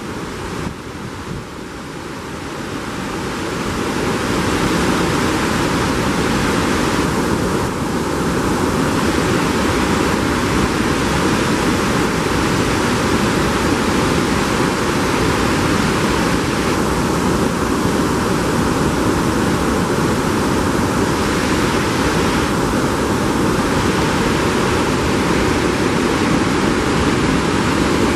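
Brook rapids in high snowmelt flow, water rushing steadily over rocks, growing louder over the first few seconds and then holding.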